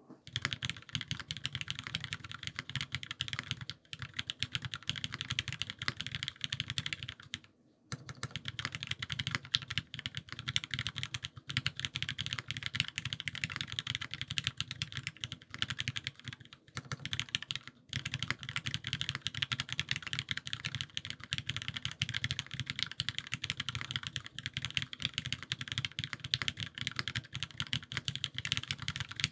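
Fast, continuous typing on an Owlab Voice65 gasket-mount mechanical keyboard with lubed, filmed HyperGlide Cherry MX Black linear switches and GMK keycaps, with short breaks about 4, 8 and 17 seconds in.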